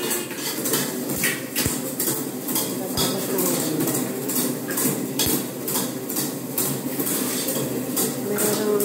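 Automix mortar mixer running its EN 196-1 fast-speed stage: the paddle churns cement mortar in the stainless steel bowl with a rhythmic metallic scraping and clinking about three times a second over a steady motor hum.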